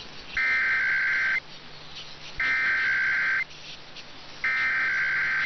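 Emergency Alert System SAME header: three one-second bursts of warbling two-tone digital data, about a second apart, sent at the start of an EAS test message.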